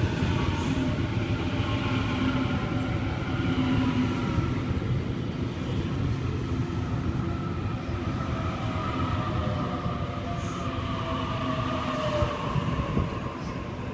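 Sydney Trains Waratah (A set) double-deck electric train arriving at the platform: a steady rumble of wheels and running gear, with electric motor whine that falls in pitch in the last few seconds as the train slows.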